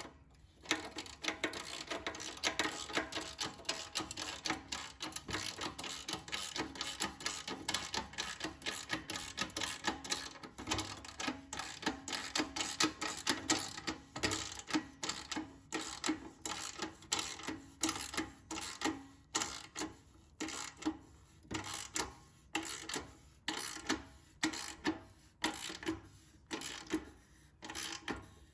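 Hand socket ratchet clicking as an exhaust-tip clamp bolt is tightened. The clicking is rapid and almost continuous at first, then comes in separate bursts about once a second toward the end as the strokes slow.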